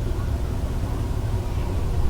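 Summer beach parking lot ambience: a steady low rumble of vehicles, with no sudden events.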